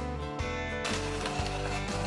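Instrumental background music with held notes and a steady beat. About a second in, a faint hiss joins it.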